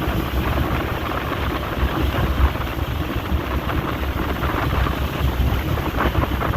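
Strong wind buffeting the microphone on the deck of a fast passenger boat under way, over a steady low rumble of the boat running through the water.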